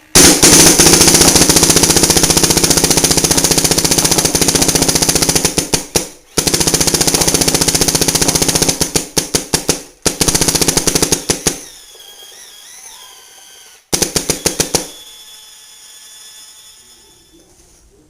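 Invert Mini paintball marker firing long strings of shots at about 15 balls per second, in four bursts, the last about a second long, the shots spacing out as each string ends.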